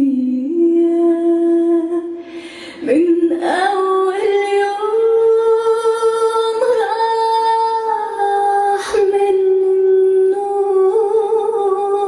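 Belly dance music with a female voice singing long, held notes, the melody stepping upward in pitch and then settling lower, broken by a couple of short pauses.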